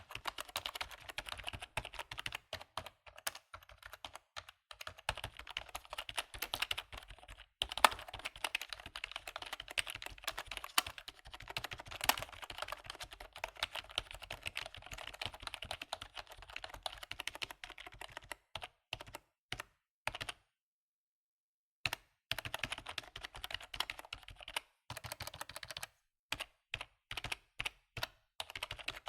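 Computer keyboard typing: a fast, continuous run of key clicks that thins to a few single taps about two-thirds through and stops for a second or two, then resumes and breaks into scattered taps near the end.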